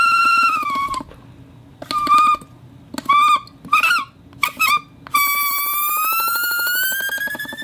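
Squeaky, whistle-like friction tones made as a sound effect. A held tone ends about a second in, followed by a run of short warbling squeaks. From about five seconds in, a long tone rises steadily in pitch.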